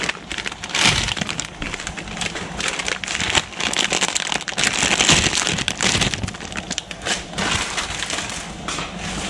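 Plastic instant-noodle packets crinkling and crackling as dry Mi Goreng noodle blocks are shaken out into a pan of boiling water. The crackling comes in uneven bursts throughout, over the water bubbling.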